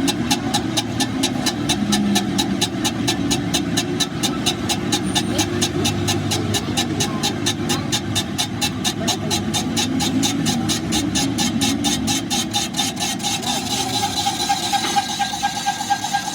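An engine running steadily with a regular rapid ticking, about five ticks a second.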